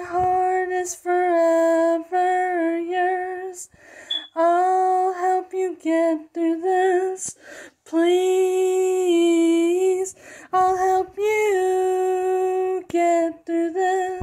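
A woman singing unaccompanied into a phone, in a series of long held notes with short breaths between the phrases.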